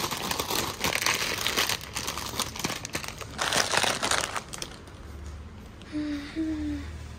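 Crinkling, rustling handling noise close to the microphone for the first four and a half seconds or so, then quieter, with two short pitched sounds about six seconds in.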